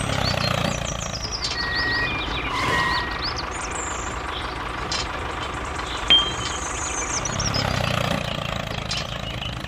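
A tractor engine running steadily with a low rumble. A few short high beeps and chirps sound over it.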